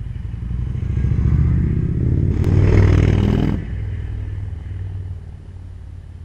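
Victory Cross Country's V-twin through an aftermarket exhaust, accelerating hard past and away. The pulsing exhaust note builds to a loud peak about three seconds in, drops suddenly, then fades as the bike rides off.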